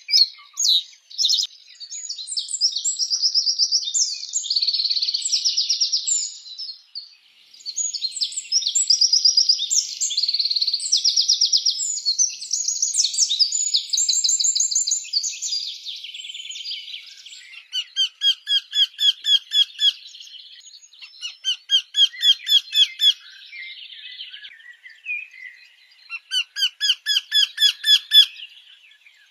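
Songbird singing outdoors: a long, varied run of high warbles and trills, then three fast phrases of rapidly repeated notes, each about two seconds long.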